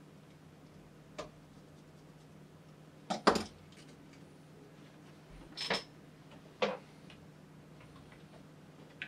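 Small screwdriver and the plastic shell and parts of a Logitech G703 mouse knocking and clicking on a work mat during reassembly: five separate short taps, the loudest a double knock about three seconds in.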